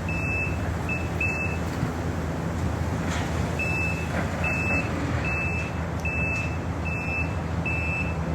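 A construction machine's reversing alarm beeps at a steady high pitch, about once every 0.7 s, over the steady hum of heavy plant running. The beeps pause for about two seconds near the start, then resume.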